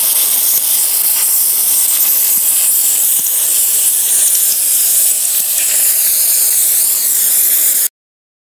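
Multiplaz 3500 water-vapour plasma torch hissing steadily as it fusion welds steel without filler rod. The hiss cuts off suddenly near the end.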